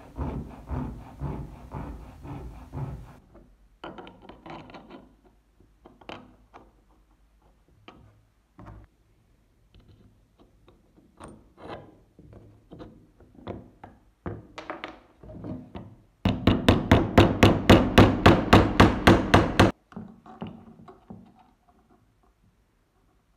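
Metal gun parts being worked by hand on a wooden workbench: scattered knocks and clicks, and after about sixteen seconds a loud run of rapid, even strokes, about five a second, lasting some three seconds.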